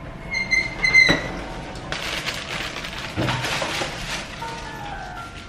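A high electronic beep from the lift as its doors slide open, then about two seconds of shuffling, rustling noise with a few knocks. Short musical notes come in near the end.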